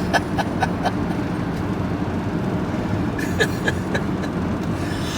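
Steady drone of a van's engine and tyres heard from inside the cab while driving, with scattered small knocks and rattles.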